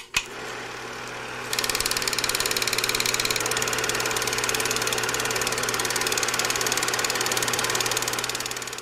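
Movie film projector sound effect: a fast, steady mechanical clatter over a low hum. It opens with a click, gets louder about a second and a half in, and fades out near the end.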